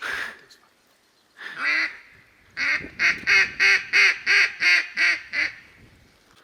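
Mallard quacking, loud and close: one quack about a second and a half in, then a run of about nine evenly spaced quacks, about three a second.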